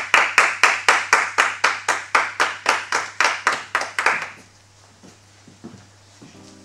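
Steady rhythmic hand clapping, about four claps a second, that stops about four seconds in, followed by faint footsteps on a hard floor.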